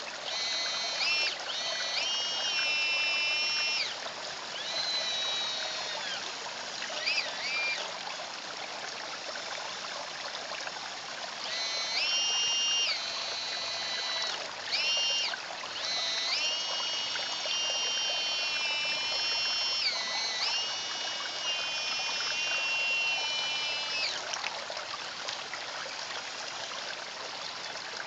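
Electric motors of a radio-controlled Caterpillar model excavator whining in repeated runs of about half a second to four seconds each, the pitch stepping and gliding up and down as the arm and bucket move. A steady trickle of pond water underneath.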